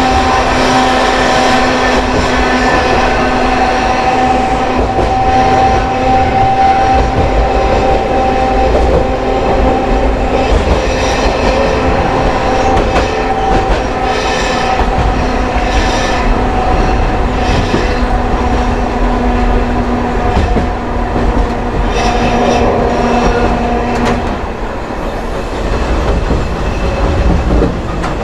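Hankai Mo351 tram's nose-suspended (tsurikake) traction motors whining steadily with gear hum while running, over a low rumble of wheels on rail, with clicks of the wheels crossing rail joints. The motor whine fades out a few seconds before the end.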